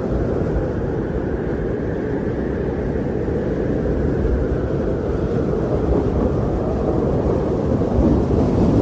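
Wind blowing steadily, a low, even rushing noise that grows slightly stronger near the end.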